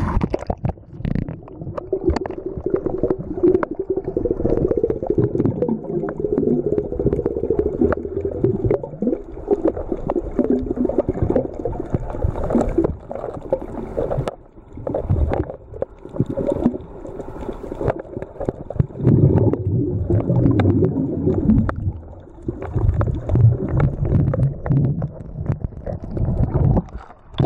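Muffled sound from a camera held under water while snorkelling: low rumbling and bubbling, with scattered clicks and crackles throughout.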